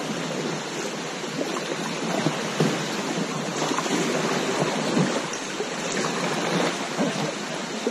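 Floodwater rushing and splashing around an inflatable raft as it is paddled through a strong current, a steady wash of water noise with small irregular splashes.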